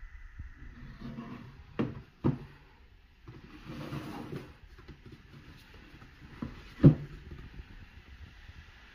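Cardboard sneaker box being handled and its lid taken off. There are two knocks about two seconds in, a short scraping rustle around four seconds, and a sharper knock near seven seconds, the loudest.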